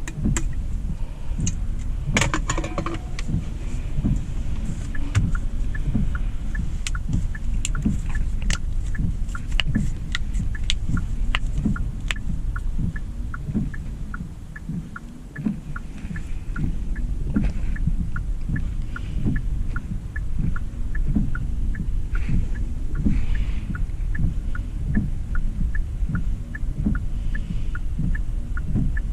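Cabin noise inside a 2025 Hyundai Elantra SEL driving in rain: a steady low road rumble with regular low thumps, and a run of light, evenly spaced ticks about two a second that starts a few seconds in.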